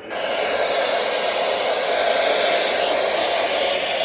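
Steady hiss of radio static, starting abruptly and holding even, with no voice in it.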